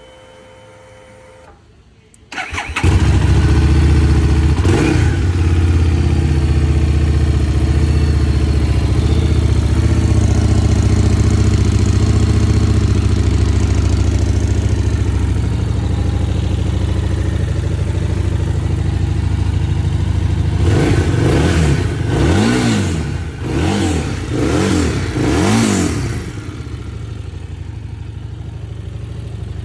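Harley-Davidson Street Rod 750's V-twin engine is started on a newly fitted battery. It catches after a brief crank about two seconds in and runs steadily, then is revved in about four quick throttle blips before settling back to idle near the end.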